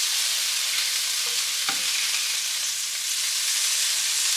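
Thick-cut bacon sizzling steadily in a hot frying pan while the strips are flipped with a spatula, with one short knock about halfway through.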